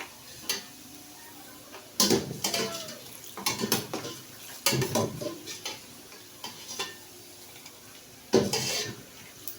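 Diced liver frying in hot oil in a pot, stirred and scraped with a utensil that clatters against the metal in bursts every second or two over a faint sizzle.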